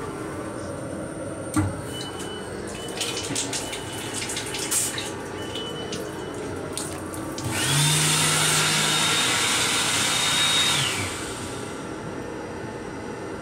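The faucet of an M7 railcar restroom sink unit runs, then the unit's hand dryer blows for about three seconds with a rushing air noise. Its motor whine rises as it spins up, about seven and a half seconds in, and falls away as it stops.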